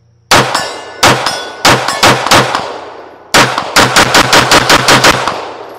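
Atlas Gunworks Nyx, a 2011-pattern pistol, being fired: five shots roughly half a second apart, then, after a short pause, a fast string of about ten shots at around five a second. A metallic ring hangs after the first shots.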